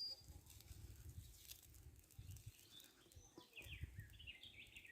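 Near silence with faint birdsong: a brief high whistle at the start and a short run of falling chirps about three seconds in, over a faint low rumble.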